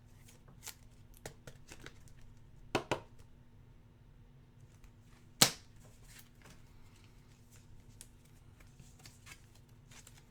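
Basketball trading cards being handled and flipped through: faint slides and light ticks of card stock, with a double click about three seconds in and one sharp snap a little past five seconds.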